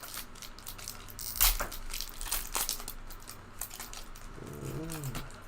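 Foil wrapper of a trading card pack crinkling and tearing as it is opened, with the cards clicking and sliding against each other in a run of short, sharp crackles; the loudest snap comes about a second and a half in.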